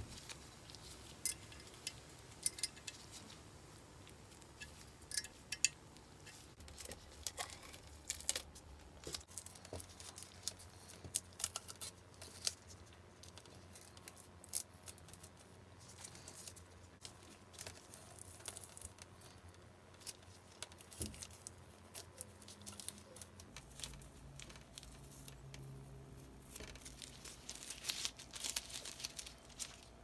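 Faint clicks, taps and rustles of nitrile-gloved hands handling and seating a metal smoke stack on a model live-steam locomotive's smokebox. Near the end comes a longer crinkling tear as the blue masking tape is peeled off the brass stack top.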